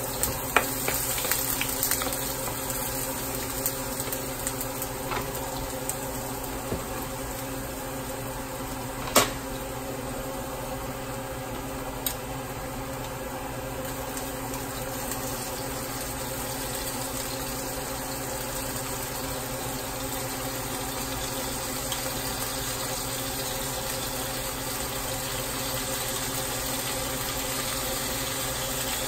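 Food sautéing in oil in a nonstick frying pan: a steady sizzle, with a few clicks of a spatula against the pan and one sharp knock about nine seconds in.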